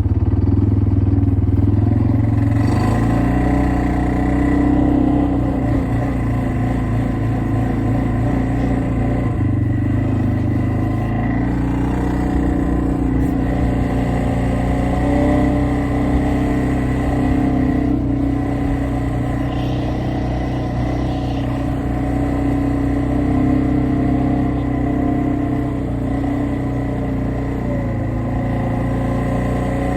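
ATV engine running under way, its pitch rising and falling several times as the throttle changes.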